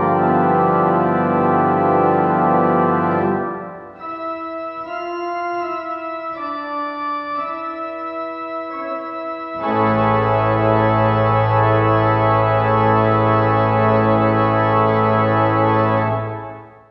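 Organ music: full sustained chords, then about four seconds in a softer passage of single held notes, then a loud full chord held for about seven seconds and released just before the end.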